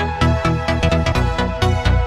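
Electronic dance music with a steady fast beat and held synth tones.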